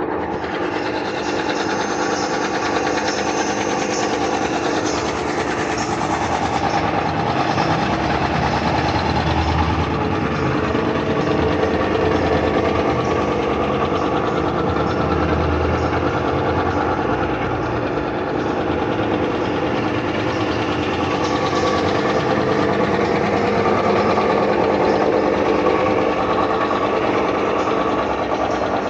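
5 hp Puma high-pressure air compressor running steadily under test, a continuous mechanical drone at an even level.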